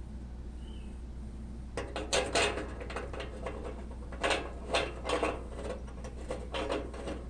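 Irregular metallic clatter and knocks of hardware being handled, a few strokes a second in uneven clusters, starting about two seconds in over a steady low hum.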